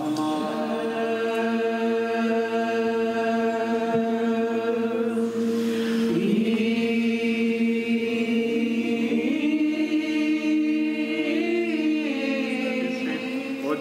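Orthodox liturgical choir chanting a hymn in long held chords of several voices, the chord changing about halfway through.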